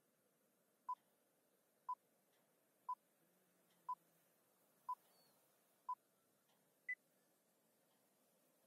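Film-leader countdown beeps: six short, identical beeps a second apart, then a seventh, higher beep a second later that ends the count.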